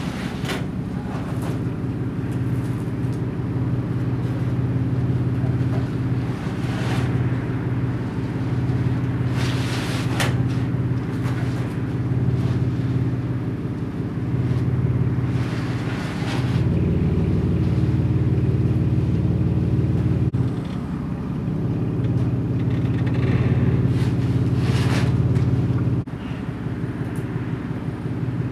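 An engine running steadily at idle, a low hum throughout that steps up and down in level a few times. Scattered knocks and rustles come from the drum sander and its rope being handled.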